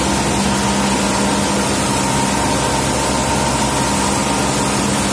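RealTech M64 rice color sorter running: a steady machine hum with several constant tones over an even hiss, with sorted rice pouring from its outlet pipe.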